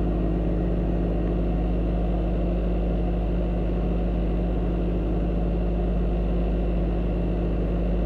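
Toyota Echo's 1.5-litre four-cylinder engine idling steadily while still cold, just after its throttle body and idle air control valve were cleaned.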